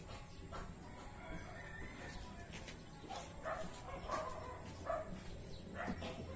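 Faint outdoor background over a low steady rumble, with a few short distant chicken calls from about three seconds in.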